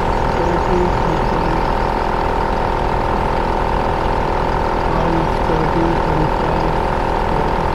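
T-Max 4x4 portable air compressor running steadily as it inflates a tyre, a constant motor hum with a steady whine. The tyre is already over its target pressure.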